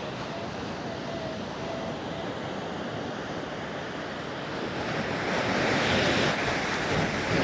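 Surf and wind on the beach, with wind buffeting the microphone; the wash grows louder about five seconds in as a wave rolls in.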